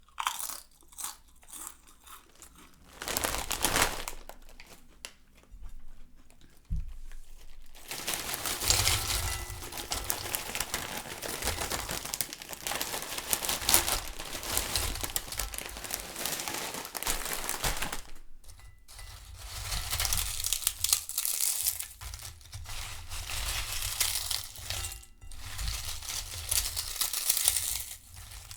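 Foil bag of Lay's potato chips crinkling in a few separate bursts. About eight seconds in, it gives way to potato chips rustling and tumbling steadily in a bowl, with a brief pause about two-thirds of the way through.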